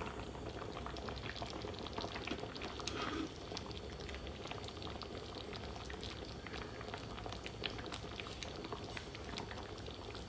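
Pot of noodle broth at a rolling boil: steady bubbling with many small pops.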